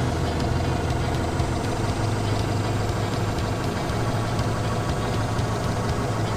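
Forklift engine idling steadily, an even low hum with no change in speed.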